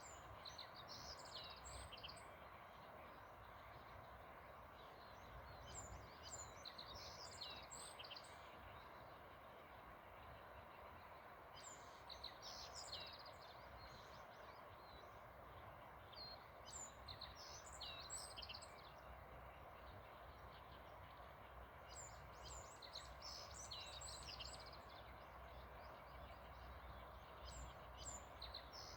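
Black-faced bunting singing faintly: short phrases of high notes, about six of them, roughly every five seconds, over a steady background noise.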